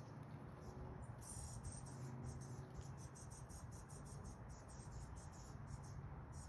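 Faint, rapid, high-pitched chirping of a bird as it is being fed, several short chirps a second, over a low steady hum.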